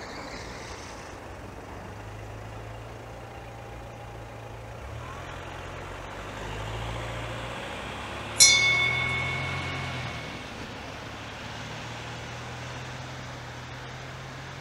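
Diesel-hauled freight train heard at a distance, its engine a steady low hum as it pulls away. About eight seconds in comes a sudden high, ringing sound that fades over a couple of seconds.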